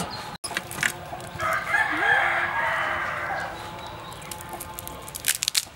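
A rooster crowing once, a harsh call of about two seconds starting about a second and a half in. A few sharp clicks come near the end.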